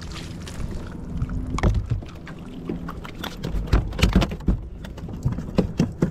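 Ocean water slapping and splashing against the hull of a Hobie pedal kayak moving through chop: irregular sharp slaps over a low rumble.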